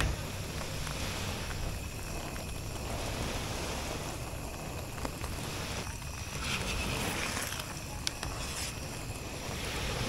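Sea waves washing onto the beach in swells every couple of seconds, over a steady low rumble of wind on the microphone, with a short click about eight seconds in.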